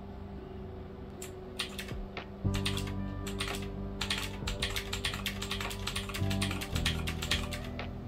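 Rapid clicking of keys being pressed, sparse at first and then many clicks a second, over background music that gets louder a couple of seconds in.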